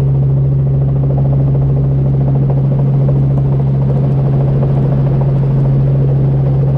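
Light training helicopter hovering, heard from inside the cabin: a loud, steady drone of engine and rotors with a strong low hum.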